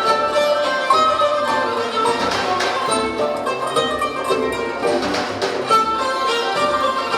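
Persian ensemble music: a bowed string, likely the kamancheh, playing a melody over plucked strings such as the tar and qanun, with a few light percussive strikes.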